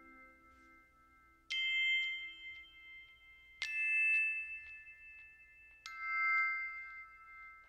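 Background music of sparse bell-like notes: three high chiming strikes about two seconds apart, each ringing on and slowly fading.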